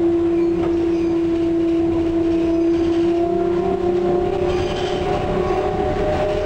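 Heard from inside a Škoda 15Tr articulated trolleybus under way: the electric traction drive gives a steady whine over the rumble of the running gear. The whine creeps slightly higher in pitch from about halfway through.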